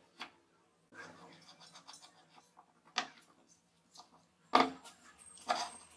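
Plywood discs slid down a steel shaft and set onto a stack, giving a few short wooden knocks and scrapes. The loudest knock comes about four and a half seconds in.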